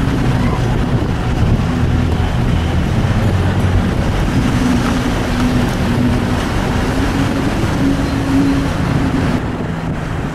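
Car engine running with road and wind noise, heard from inside the moving vehicle; a steady low engine hum that wavers slightly in pitch under a constant rushing noise.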